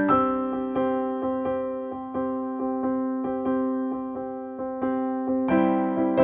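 Background music: a soft electric piano playing a steady repeating pattern of notes, growing fuller near the end.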